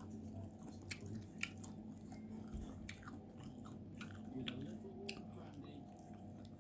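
Close-up mouth sounds of someone chewing a soft, sticky swallow of pounded yam with egusi soup: irregular wet smacks and clicks, over a faint steady hum.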